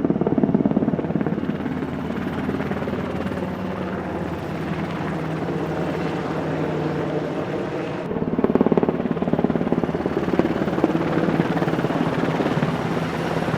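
Helicopter flying, a steady engine hum with fast rotor chop. The sound changes abruptly about eight seconds in, as if a different shot begins.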